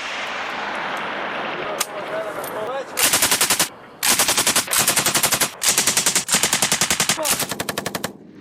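7.62 mm machine gun firing five rapid bursts of automatic fire, starting about three seconds in after a steady hiss.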